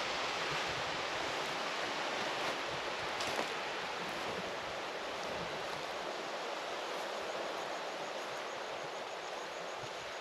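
Steady surf washing onto the beach, an even hiss that never stops, with a couple of light knocks in the first few seconds.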